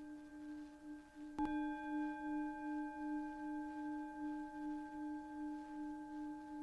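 Singing bowl ringing with a steady, wavering low tone and several overtones. It is struck again about a second and a half in, and higher overtones join the ring.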